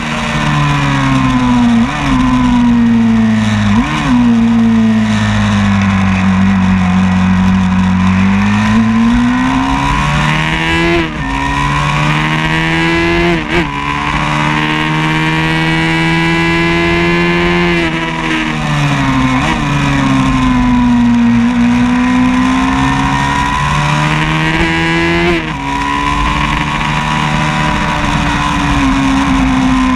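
Vintage 500cc-class racing motorcycle engine heard onboard at speed on a circuit. Its pitch falls off the throttle and climbs again on it, with about six sharp, brief jumps in revs at the gear changes.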